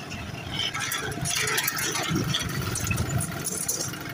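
Motorcycle ridden slowly, its engine running with irregular rattling.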